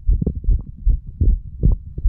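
A human heartbeat: a steady rhythm of dull, low thumps, the lub-dub beats of the heart of a 35-year-old said to be under the influence of medical marijuana and tobacco.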